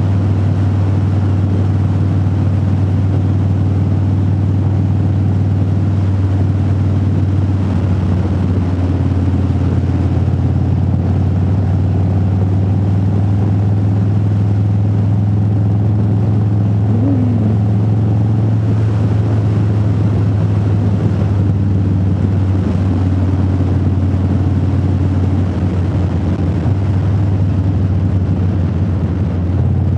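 Motorcycle engine running at a steady cruise, heard from inside the rider's helmet as a steady low drone under a rush of wind. The engine eases off briefly twice near the end.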